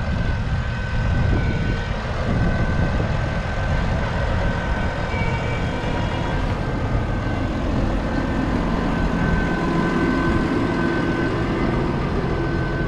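A tractor's diesel engine running steadily, with a steady high whine above the rumble.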